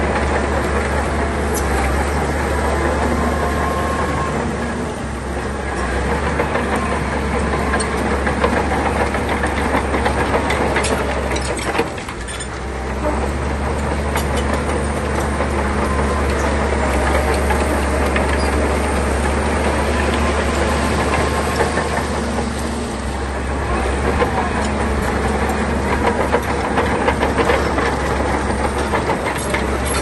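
Shantui bulldozer's diesel engine running hard with its steel tracks clanking as it pushes stone, easing off briefly three times.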